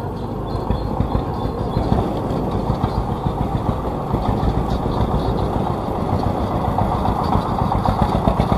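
Single-cylinder diesel engine of a grandong, a homemade rural farm vehicle, chugging with a fast even beat as it drives by, growing louder toward the end.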